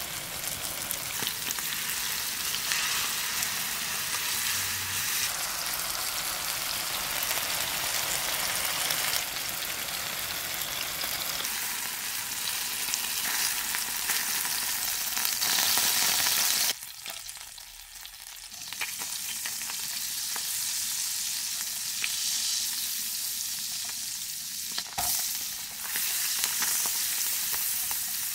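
Chicken thighs sizzling in hot oil in a frying pan, a steady hiss with occasional utensil scrapes. After a short drop a little past the middle, chopped red onion sizzles in the fat as a spatula stirs it.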